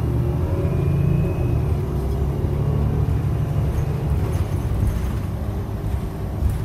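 City bus driving, its engine and road rumble heard from inside the passenger cabin as a steady low drone.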